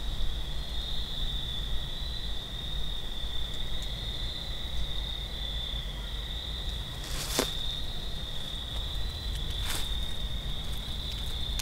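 Steady high-pitched chorus of night insects trilling without a break, with two short sharp clicks about seven and ten seconds in.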